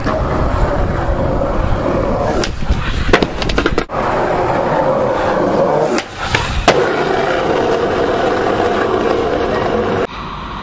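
Skateboard wheels rolling on rough concrete, with several sharp clacks of the board about three seconds in and a loud smack of the board about seven seconds in. The rolling cuts off suddenly near the end.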